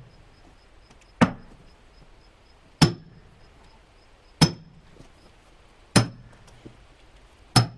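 Splitting maul striking a steel wedge driven into a black oak log half, five heavy blows about one and a half seconds apart, each a sharp metallic clang with a short ring.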